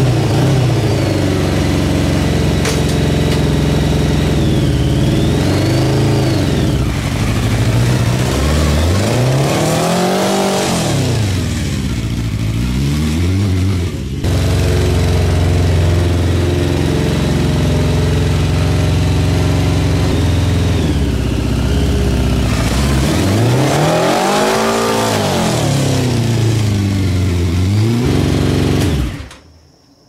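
Honda CBR600 inline-four engine in a home-built reverse trike, running and revving up and back down twice as the trike moves off, then stopping suddenly near the end. The revs flare up in a way typical of the clutch slipping or the rear tire spinning.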